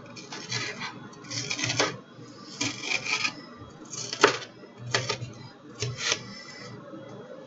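Knife chopping red onion on a hard cutting surface: short bursts of quick strikes, about six of them, with one sharper, louder knock about four seconds in.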